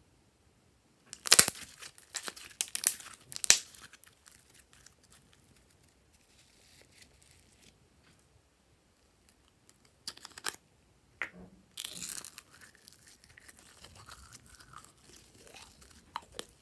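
Sticky slime crackling and tearing as it is stretched and laid into the tray, in loud crackly bursts from about a second in to about four seconds. More crackles come around ten seconds in, followed by softer squelching as glitter slime is squeezed out of a plastic bottle.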